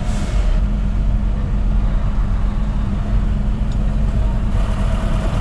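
A vehicle engine running with a steady low rumble and hum.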